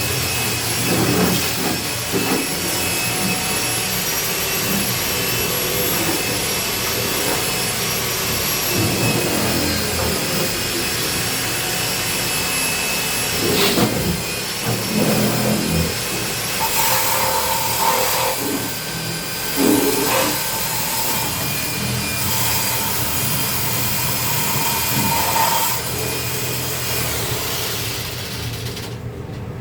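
Industrial duct-cleaning vacuum running steadily with a high whine, with occasional knocks and scraping; the whine drops away suddenly near the end.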